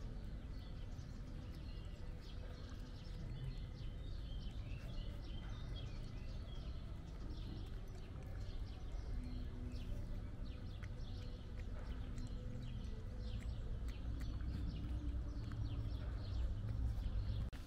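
A cat eating wet food from a bowl close by, chewing and smacking with many small, quick wet clicks, over a steady low rumble.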